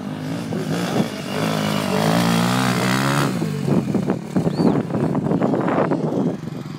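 Motocross bike engine revving hard on a hill climb. Its pitch climbs steadily, drops about three seconds in, then goes choppy and uneven with the throttle blipping until it fades about six seconds in.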